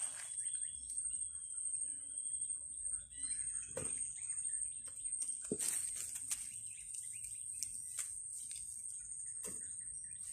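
Outdoor ambience of birds chirping over a steady high-pitched whine, with scattered clicks, knocks and rustles from the bee smoker being lit and handled.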